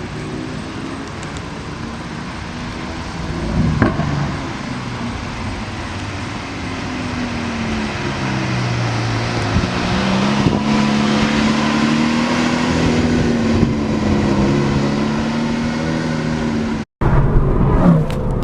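Lamborghini supercar engine running and being revved, its pitch rising and falling as it pulls away and accelerates. Near the end the sound breaks off briefly, then a car's engine note falls in pitch as it passes.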